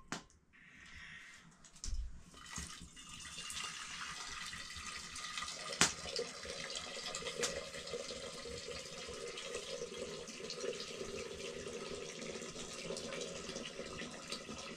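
Water poured in a steady stream from a kettle into an aluminium cooking pot, starting about two seconds in after a knock, with a sharp click near the middle.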